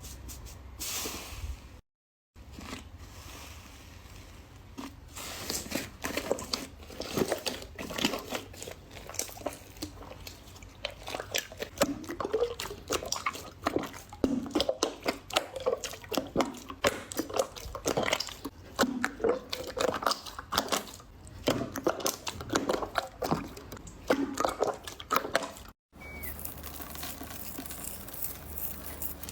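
Slime being squeezed and worked by hand: a dense run of wet squelches, sharp clicks and small air-bubble pops, broken by two sudden cuts.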